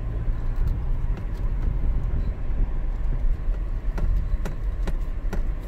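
Cabin sound of a 2019 Toyota 4Runner's 4.0 L V6 SUV crawling over a loose rocky trail: a steady low rumble of engine and tyres, with a few sharp knocks in the last couple of seconds.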